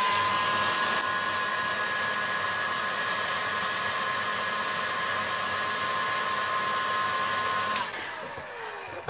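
Hot-air heat gun blowing steadily with a fan whine while it heats a laptop's graphics chip to reflow the solder. About eight seconds in it is switched off, and the blower winds down with a falling pitch.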